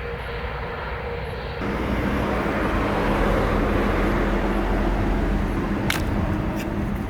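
Steady vehicle noise: a low drone with a faint steady hum, growing a little louder about a second and a half in.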